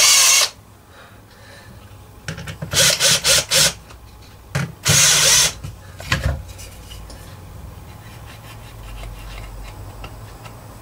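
Cordless drill-driver driving long screws into wood in short bursts: one at the start, a quick run of short pulses about three seconds in, and a longer burst at about five seconds.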